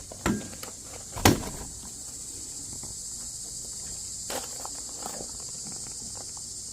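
Steady high insect chirring in the background, with a few sharp clicks and knocks from handling, the loudest about a second in.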